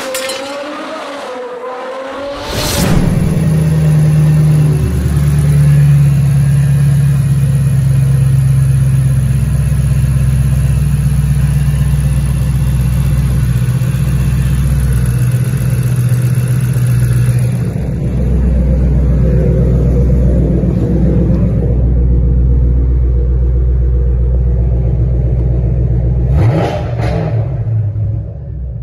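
Ford Mustang GT500's supercharged 5.4-litre V8 idling steadily around 1,000 rpm, with a short rise in revs near the end.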